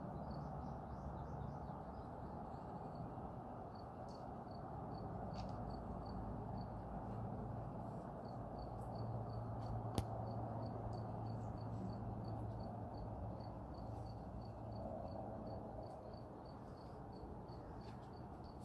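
An insect chirping steadily in short, evenly spaced high chirps, about three a second, over a low steady outdoor hum. A single sharp click comes about halfway through.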